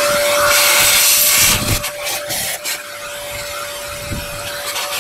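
Vacuum cleaner running with a steady whine, its hose nozzle sucking at the top of an engine cylinder bore. The rush of air drops off about two seconds in, and there is crackling and rustling as masking tape is pulled out of the bore.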